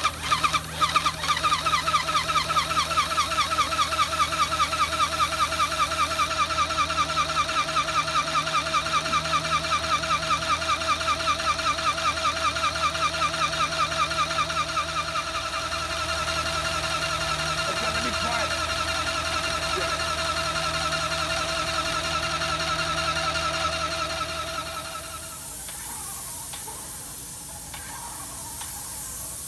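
Airless paint sprayer's pump running with a fast, even pulsing whine as it pushes paint to the spray gun; the pulsing smooths out partway through and the pump drops away near the end.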